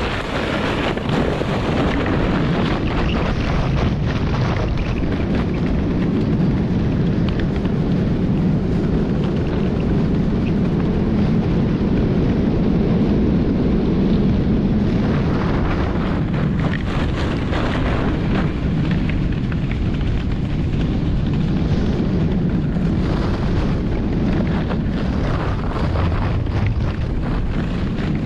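Wooden luge sled running down a packed-snow toboggan track: a steady rumble and scrape of the runners over snow and ice, mixed with wind buffeting the microphone. Stretches of sharper hiss come in about halfway through and again near the end.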